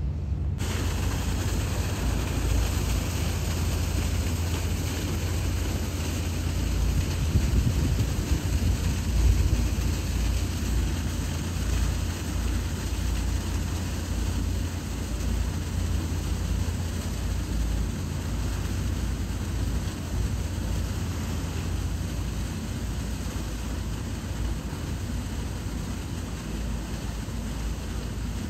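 A steady low engine drone under a steady rushing noise. The rushing noise comes in abruptly about half a second in and swells a little a few seconds later.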